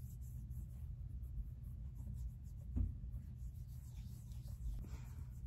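Faint rubbing of fingertips on skin as foundation primer is spread over the face, over a low steady hum, with a soft thump about three seconds in.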